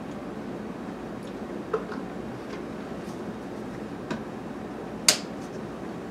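A few light clicks and taps from a glass measuring cup and fragrance-oil bottles being handled on a digital kitchen scale, with the sharpest, ringing click about five seconds in, over a steady low hiss.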